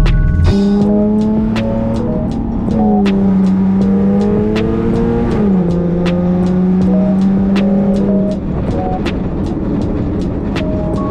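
Background music with a steady beat and a sustained, sliding bass melody.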